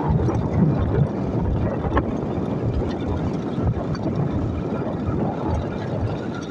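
Motorcycle engine running steadily while riding along at a constant pace, heard from the rider's seat, with one sharp click about two seconds in.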